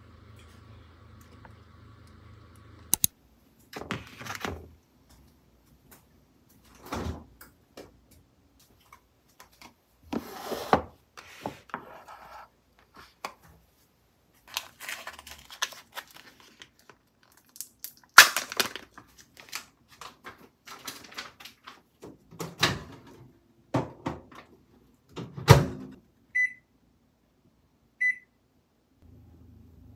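Kitchen handling noises: scattered knocks, clatter and rustling of containers and food packaging on a stone countertop. Near the end a kitchen appliance's keypad gives two short beeps about a second and a half apart.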